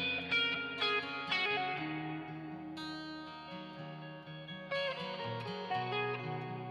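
Guitar playing: picked single notes and chords ringing out, several sharp note attacks in the first second and a half, then longer held notes.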